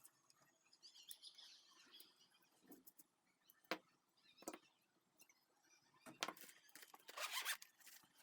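Quiet handling noises from work on a Zippo lighter: a few sharp clicks, two of them about a second apart in the middle, with light scraping near the start and again near the end.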